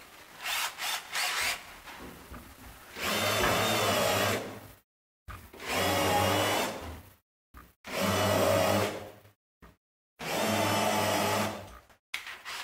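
Cordless drill-driver running in four bursts of one to two seconds each, driving screws into a wooden cleat.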